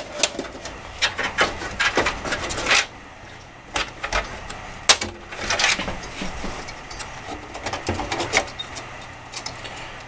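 Clicking, knocking and scraping of a motherboard being pushed and shifted around inside a steel computer case, the board not yet seating against its I/O backplate. A dense run of knocks comes in the first three seconds, then scattered clicks, one sharp one about halfway.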